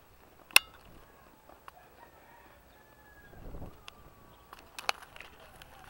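A rooster crowing faintly, in long drawn-out calls. Two sharp clicks sound over it, the loudest about half a second in and another near the end.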